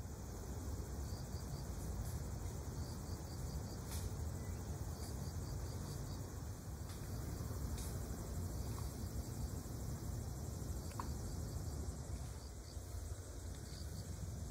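Insects chirping in short trains of three or four high pips that repeat every second or so, over a steady low outdoor rumble and hiss.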